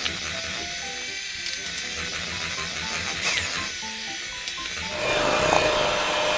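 Electric hand mixer running, its beaters whirring through creamed butter and sugar in a stainless steel bowl as egg yolks are beaten in one at a time; it gets a little louder about five seconds in. Background music with short melody notes plays over it.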